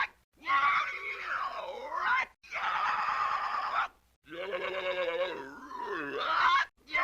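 Three separate screaming vocal cries, one after another, each lasting about one and a half to two and a half seconds with a clean silent gap between them; the pitch wavers and bends, and the last one slides up near its end.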